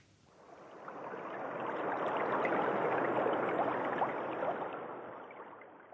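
A rushing, water-like noise with a fine crackle, like a stream, that fades in, swells to a peak midway and fades out again. It is an interlude sound effect between segments of a radio programme.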